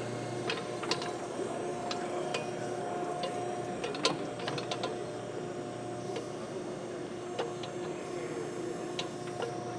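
Backhoe running with a steady engine hum and a held tone, with scattered light clicks and knocks throughout, the loudest about four seconds in.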